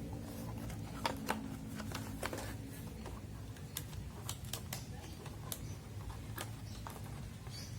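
Hands handling and opening packaging: a scatter of short, sharp clicks and taps, with a steady low hum underneath.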